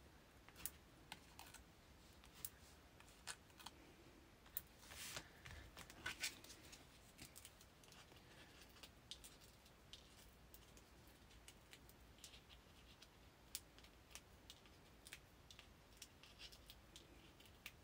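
Near silence with faint scattered clicks and brief paper rustles: foam adhesive dots (Dimensionals) being peeled off their backing strip and pressed onto the back of a cardstock label.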